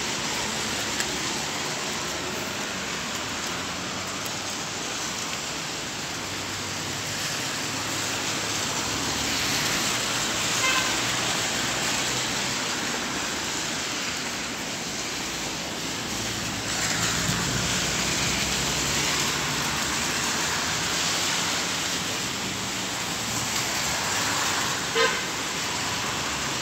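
Steady hiss of road traffic on a rain-soaked street, tyres swishing on wet tarmac with engines running. There is a short car-horn toot about ten seconds in and another near the end.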